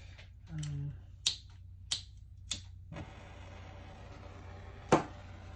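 Handheld butane torch being lit: the igniter clicks three times, then the flame catches and hisses steadily, with one louder click near the end.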